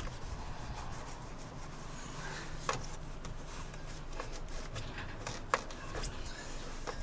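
Cloth rag rubbing and wiping a newly fitted handle in a truck cab, with a few sharp clicks.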